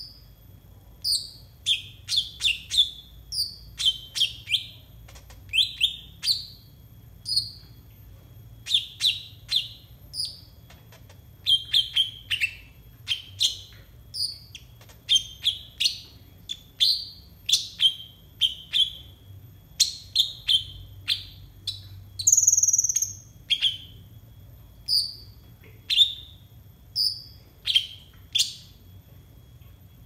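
Kolibri ninja (van Hasselt's sunbird) singing: a long run of short, sharp, high chirps, one or two a second, with one longer, higher note about three-quarters of the way through.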